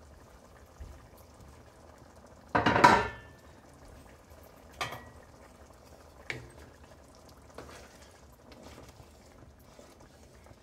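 A loud clatter of kitchenware about two and a half seconds in. After it, a wooden spatula stirs simmering black-eyed pea curry in a pan, knocking against the pan a few times at intervals of a second or two.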